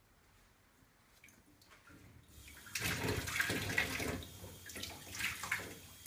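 Tap water running from a faucet into a stainless steel sink and splashing over a Van Dyke Brown print held under the stream, rinsing off the unexposed emulsion. The water comes on a little before halfway through and runs steadily after that.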